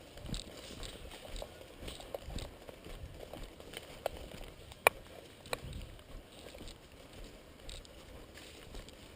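Scattered rustles and light knocks of a player moving with gear, with one sharp crack about five seconds in and a weaker one about half a second later.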